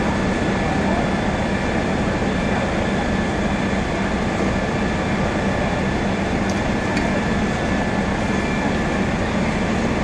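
Fire appliances running their engines and pumps: a steady mechanical drone with a constant low hum and a few fixed higher tones over it.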